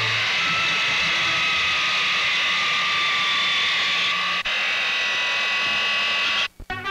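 Sawmill circular saw whining steadily through a log: a loud hiss under several held high-pitched tones. There is a brief click about four seconds in, and the sound cuts off abruptly near the end.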